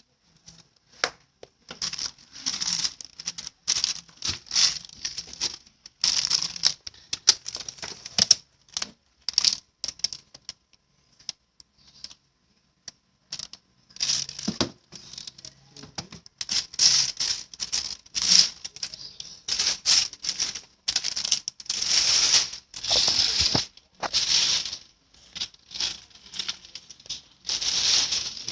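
Packaging being handled, crinkling and rustling in irregular short bursts, with a pause of a few seconds about halfway through.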